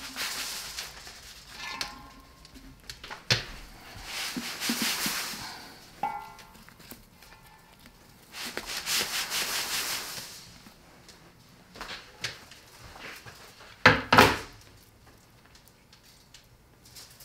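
Rough rope rasping as it is pulled tight and knotted around a standing rack of raw beef ribs, in several drawn-out scrapes, with a sharp knock a few seconds in and a louder double thump late on.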